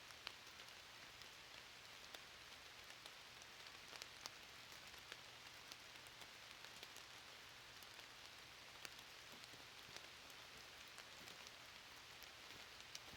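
Faint, steady hiss of light rain, with scattered single drops clicking now and then.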